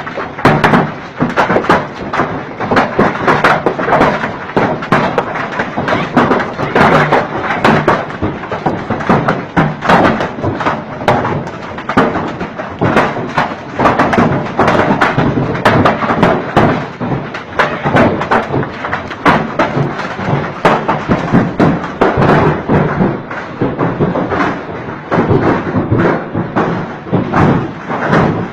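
Violent storm: a loud, continuous clatter of rapid, irregular thuds and knocks, as of something pelting a hard surface.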